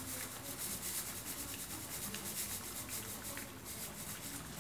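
Faint steady hiss of lapsi (hog plum) pickle cooking in a wok on an induction hob, as sugar is poured onto it from a canister.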